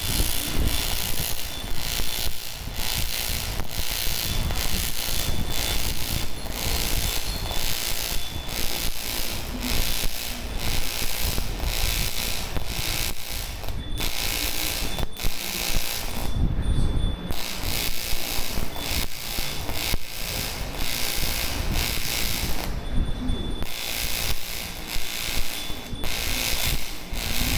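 AC TIG welding arc on aluminium, a steady buzzing hiss that stops briefly three times as the arc is broken and struck again.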